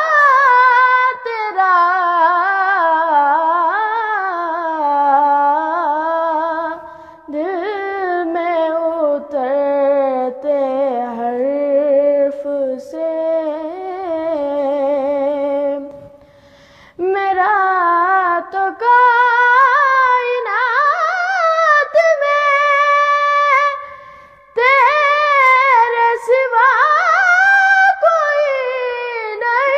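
A boy's solo voice reciting an Urdu naat, unaccompanied, in long held notes that slide and waver up and down. It stops for breaths about seven, sixteen and twenty-four seconds in.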